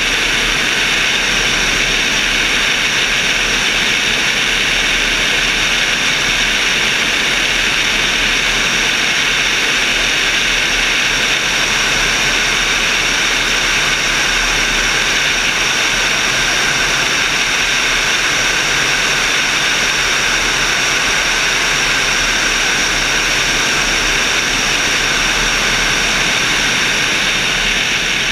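Steady in-flight noise of a motorglider: a constant engine-and-propeller drone mixed with rushing air over the wing-mounted camera, unchanging throughout.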